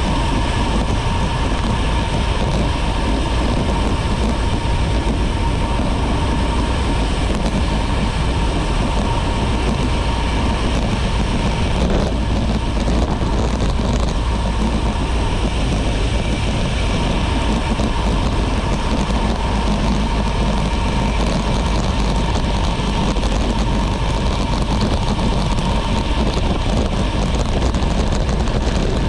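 Steady wind rush and rolling road noise picked up while riding a road bike, heavy at the low end, with a faint high steady tone over it.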